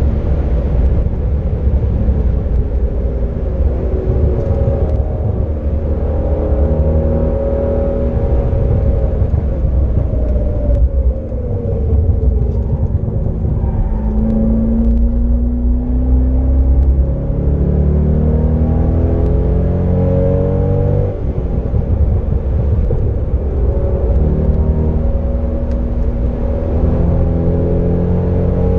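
A 2007 Corvette C6's 6.0-litre LS2 V8, heard from inside the cabin on track. The engine note falls as the car slows about a third of the way in, then climbs steadily under acceleration. It drops at an upshift about three-quarters of the way through and climbs again, over steady tyre and wind noise.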